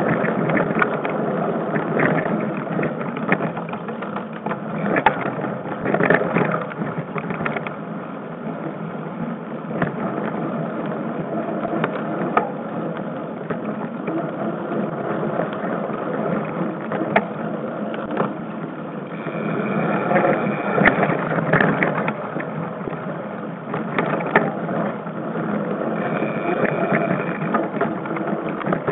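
Mountain bike ridden fast over a bumpy forest singletrack, heard from a camera mounted on the bike: a constant clatter and rattle of the bike and mount, with tyre and wind noise. A thin high tone sounds briefly twice in the second half.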